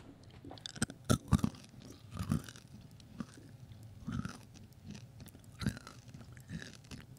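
A person chewing peanut M&M's: quiet, irregular crunches and mouth noises, with a few sharper crunches about a second in.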